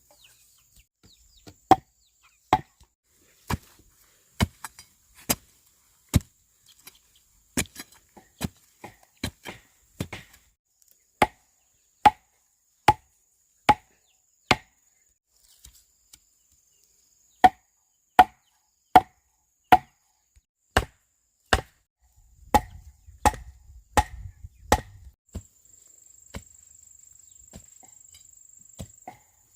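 Bamboo being chopped with a blade: a string of sharp, ringing chops about one a second, in runs with a pause around the middle and the strokes stopping a few seconds before the end. A faint, steady high insect whine runs underneath.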